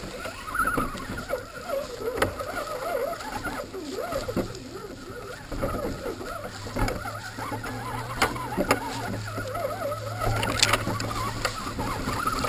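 Electric motor of an RC crawler truck whining, its pitch rising and falling with the throttle, with sharp knocks and clicks as the truck bumps over leaves and sticks, heard from a camera mounted on the truck.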